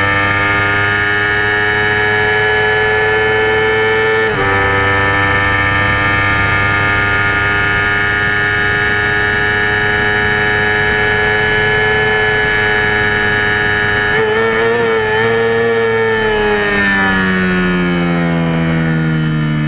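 Yamaha R25's 250 cc parallel-twin engine, fitted with an AHM Z1R aftermarket exhaust, running at high revs under race load. The note holds steady, with a brief break about four seconds in as at a gear change, then falls steadily over the last few seconds as the revs drop.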